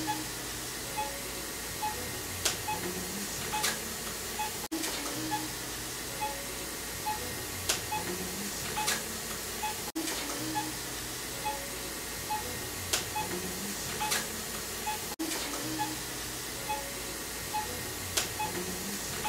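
Soft background music: a short loop of low notes with a light regular blip, repeating about every five seconds.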